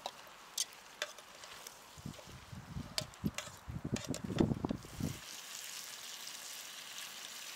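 Chicken, carrots and tomatoes frying in a metal pot over a campfire. A metal spoon stirs and knocks in the pot in the middle, then the food sizzles steadily.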